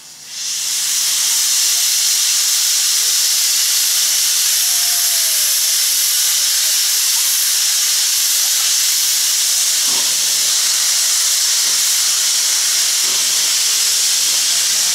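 Victorian Railways R-class steam locomotive R707 venting steam: a loud, steady hiss that starts suddenly just after the start and carries on unbroken.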